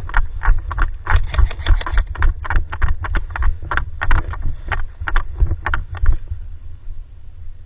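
Airsoft guns firing: a rapid, irregular string of sharp cracking shots for about six seconds, then stopping, over a steady low rumble on the microphone.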